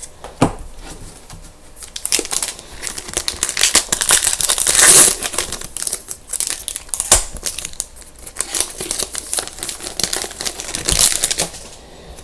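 Crinkling and tearing of a trading-card pack wrapper being opened by hand, with irregular crackles and sharp clicks, loudest about halfway through.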